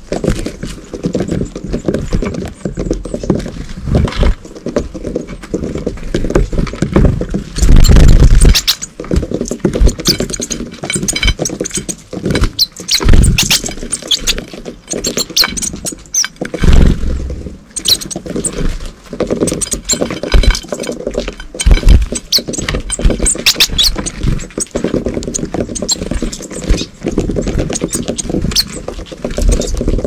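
Blue tits and great tits pecking at suet balls and hopping on a ceramic plate close to the microphone: a busy run of quick taps and claw clicks, with loud fluttering thumps of wings as birds land and take off.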